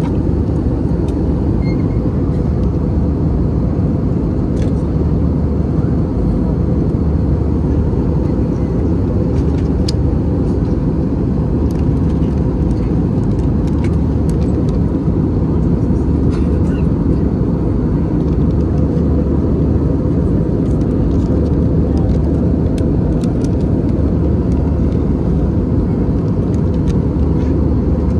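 Steady cabin noise of an Airbus A320-200 in flight: a constant low rush of engines and airflow. Faint clicks and rustles come from handling the seat-back pocket and the paper safety card.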